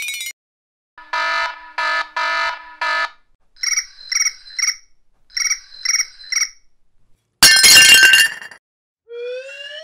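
A string of cartoon sound effects: four short buzzing tones, then two quick groups of high chirping pips, a loud crash-like burst about seven and a half seconds in, and a rising whistle glide near the end.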